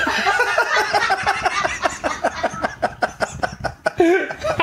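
People laughing hard in a long run of quick, pitched ha-ha pulses, several a second.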